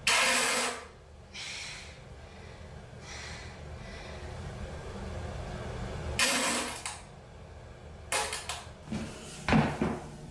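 A string of short farts, mostly hissing, with a lower, pitched one near the end.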